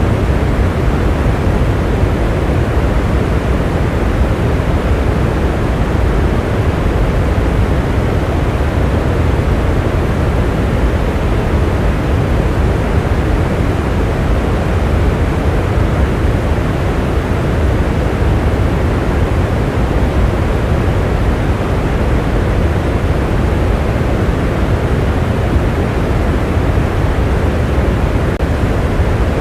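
Steady heavy rain: an even, unbroken rushing noise, deepest at the low end, with no single drops, thunder or other events standing out.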